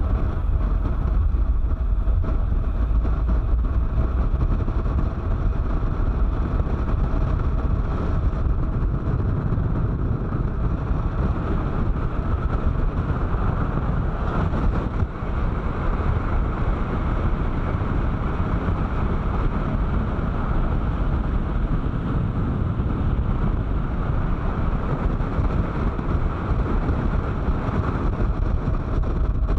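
A moving road vehicle's steady road and engine noise, with wind rushing over the microphone at the open side window. A deep, even rumble dominates throughout.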